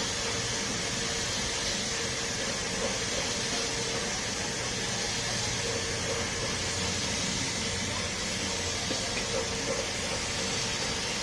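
A steady hiss with a faint constant hum underneath, unchanging throughout.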